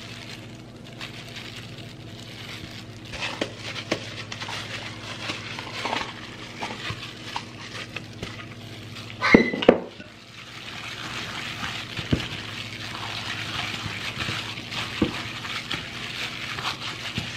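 Gloved hands scraping and squishing ground pork-and-shrimp filling out of a plastic food processor bowl into a glass bowl, with two loud knocks about nine seconds in. After that the filling is mixed by hand, a steady wet squelching with small clicks against the glass.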